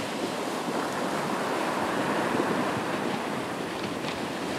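Ocean surf washing onto a sandy beach: a steady rush of foaming water.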